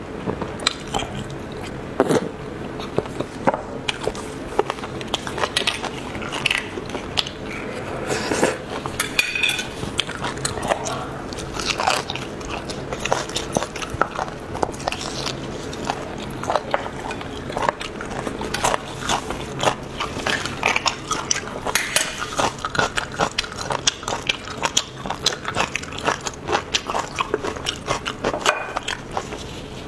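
Close-miked mukbang eating sounds: biting into and chewing braised beef marrow bones, a dense irregular run of mouth clicks and smacks.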